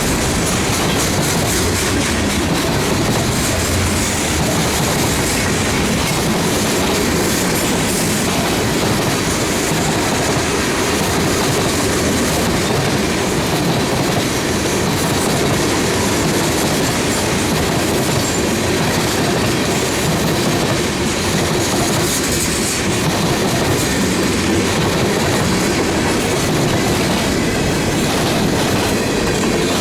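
Freight train cars rolling past close by: a loud, steady noise of steel wheels running on the rails that holds for the whole stretch.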